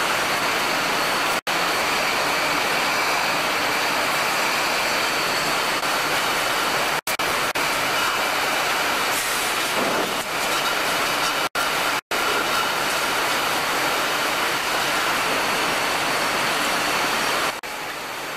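Steady, noisy hum of packaging-line machinery and conveyors running in a factory hall, with faint steady tones in it. The sound cuts out for an instant several times.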